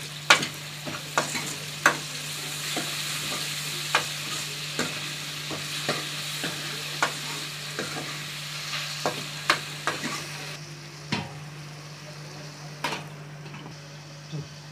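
Garlic, shallots and tomato sizzling in oil in an aluminium kadai while a steel ladle stirs and clinks against the pan. About eleven seconds in there is a knock as a metal lid goes on the pan, and the sizzle then sounds duller.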